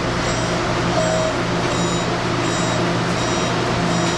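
Steady low hum of a parked train carriage's onboard equipment, with faint short high-pitched beeps repeating about every half second.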